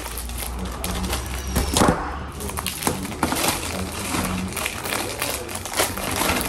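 Plastic wrapping on packs of square crackers crinkling and crackling as it is slit with a knife and pulled open, with a louder crackle about two seconds in, over a steady low hum.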